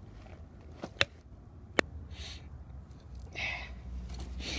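A wooden baton knocks on the spine of a carbon-steel Mora Bushcraft Black knife, driving the blade through a rock squirrel's skull: a light tap and then two sharp knocks between one and two seconds in. After them come a few short, soft rasps as the blade is worked through.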